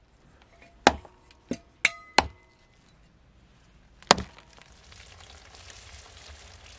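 A knife chopping raw meat on a wooden board: five sharp strikes in the first four seconds. Meat then sizzles in hot oil with onions in a wide pan, growing louder toward the end.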